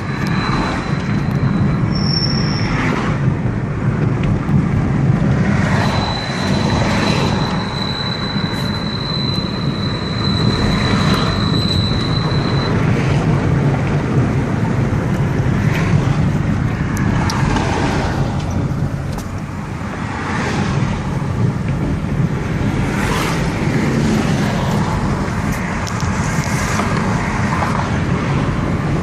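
Chevrolet Cruze driving, with steady road and engine noise and a thin high whistle that comes and goes, clearest for several seconds in the first half. The owner links the whistle to the brake pads and brake disc.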